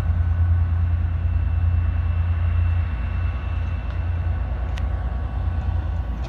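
Herzog self-propelled work train running away along the track: a steady low engine rumble with a faint steady whine over it, easing a little about halfway through. A single sharp click near the end.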